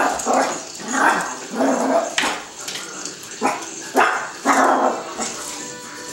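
Miniature pinscher barking repeatedly at a toy ball, short barks coming about every half second with brief pauses between them.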